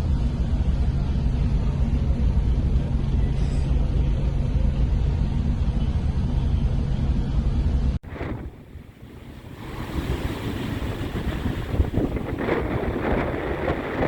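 Wind and sea noise aboard a ship, with a steady low rumble for the first part. An abrupt cut about two-thirds of the way through drops the level, then a rush of wind and waves builds again.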